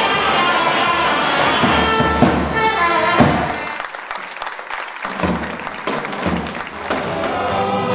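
Turkish folk dance music ends about three seconds in with a falling slide. The audience then claps for a few seconds, and the music starts again near the end.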